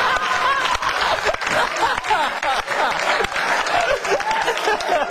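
Studio audience applauding, a dense patter of clapping that runs on under voices.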